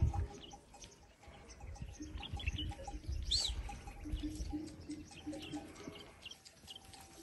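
Small birds chirping in quick, short, high calls, over a low rumble that dies away about halfway through; from about two seconds in, a low note pulses over and over.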